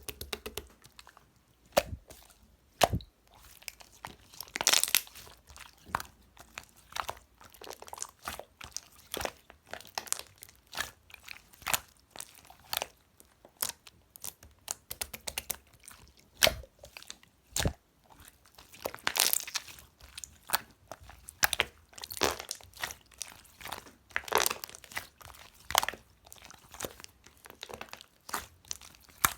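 Slime being mixed and kneaded by hand, giving an irregular run of crackles and clicky pops.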